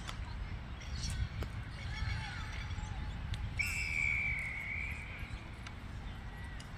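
A referee's whistle blows once, a single steady blast of about a second and a half, about halfway through, over a low background rumble with faint distant shouts and a few sharp knocks.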